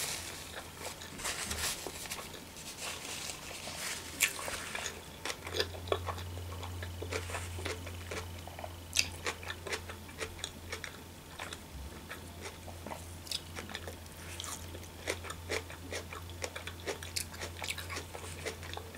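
A person chewing a large mouthful of sushi roll close to the microphone: irregular wet mouth clicks and smacks of chewing.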